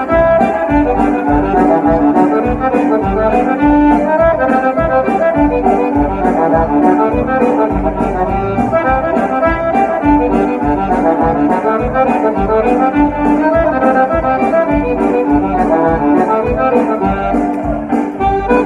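Button accordion playing an instrumental dance tune over a steady drum beat, with brass-like tones in the mix.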